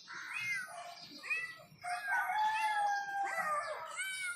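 Kittens mewing: short high calls about half a second and a second and a half in, then a long drawn-out call lasting over a second, and another short call near the end.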